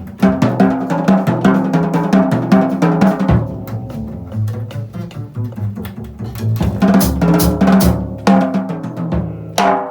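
Small jazz band playing live, with the drum kit out in front: rapid snare and bass-drum strokes and cymbals over bass and other pitched instruments, and a strong crash near the end.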